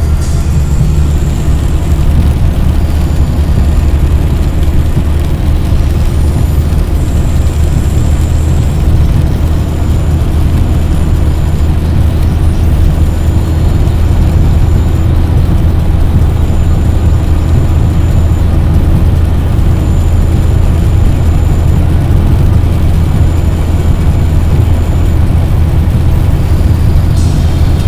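Motor vehicle driving on a road: a steady, loud low rumble of engine and road noise that does not change.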